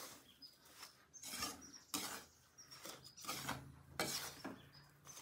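Metal spatula scraping and stirring a dry mix of roasted wheat flour, powdered sugar and whole fox nuts around a steel kadhai. The strokes are faint, repeated and slightly uneven, about two a second.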